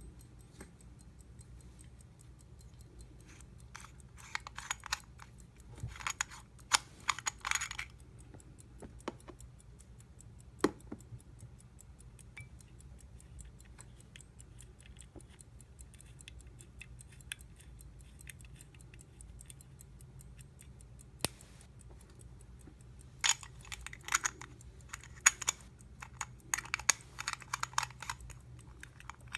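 Hamilton 992 railroad pocket watch ticking rapidly and steadily, with two bursts of sharp metallic clicking and scraping as its gold case back and bezel are turned and handled, plus a few single clicks.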